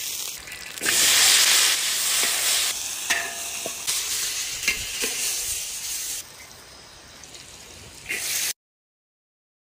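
Hot oil sizzling loudly in a large wok as chopped peppers go in and are stir-fried with a metal spatula, with a few sharp scrapes and clinks of the spatula on the pan. The sizzle eases after a few seconds, flares briefly, then cuts off to silence near the end.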